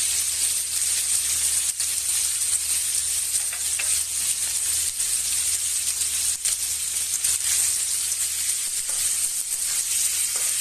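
Pieces of pork frying in hot oil in a wok: a steady sizzle with faint scattered pops.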